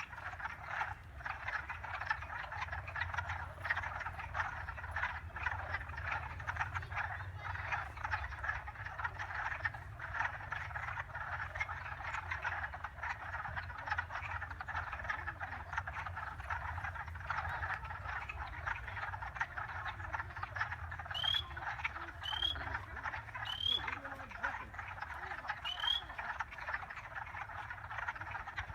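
A dense chorus of many frogs calling at once, a continuous rapid crackling clatter of overlapping calls. Four short rising whistled chirps sound over it in the later part, and a steady low rumble runs underneath.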